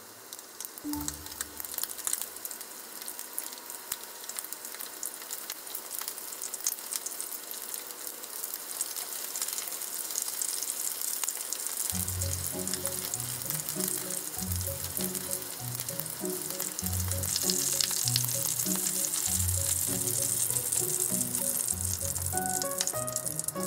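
Flour-coated chicken wings shallow-frying in oil in a frying pan: a steady sizzle full of small crackles that grows louder as the pan fills.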